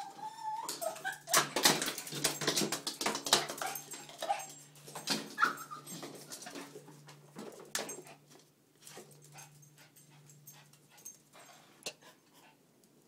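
Small dog whining and yipping in short high cries that slide up and down in pitch, among many sharp clicks and knocks. It all grows quieter after about eight seconds.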